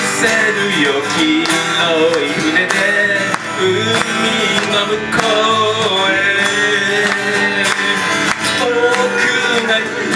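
Live acoustic band playing: several acoustic guitars strummed and picked over an electric bass, with a man singing.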